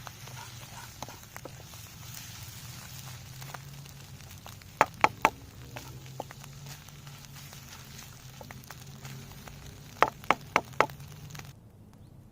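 Campfire hissing and crackling, with three sharp loud cracks about five seconds in and a quick run of four more about ten seconds in; the hiss stops suddenly near the end.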